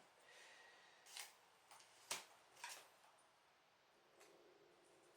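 Near silence broken by a few faint clicks and rustles of plastic LEGO pieces being handled, the sharpest about two seconds in.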